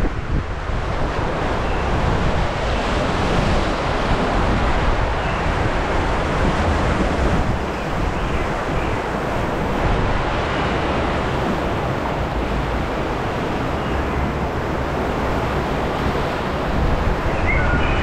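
Rushing rapids water churning steadily around a river rapids raft boat, with wind noise on the microphone.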